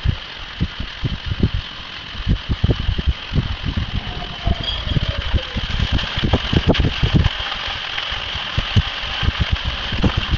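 High-pressure jet of water gushing up out of the ground: a steady hiss with irregular low thuds and rumbling, busiest around the middle.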